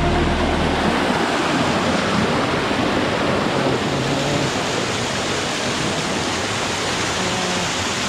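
Rushing water of a jungle stream cascading over boulders into a pool, a steady loud rush with no breaks.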